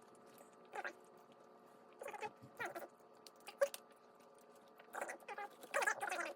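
Close-up chewing of chicken nuggets: short, irregular wet mouth and chewing sounds, half a dozen in a few seconds, over a faint steady hum.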